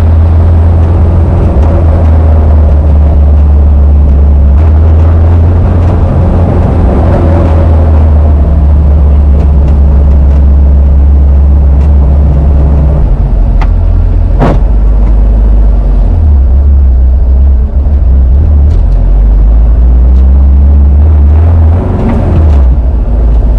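Porsche 914's air-cooled engine running, a little rough and in need of tuning, after a new fuel pump cured its no-start. The engine note drops lower about halfway through and wavers after that, with a sharp click around the middle.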